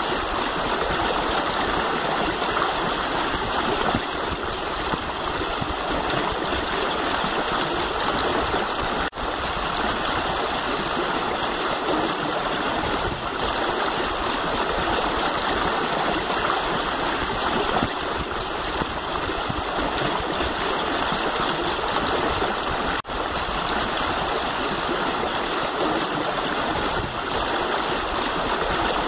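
Shallow river running over rocks: a steady, even rush of water that cuts out for an instant twice.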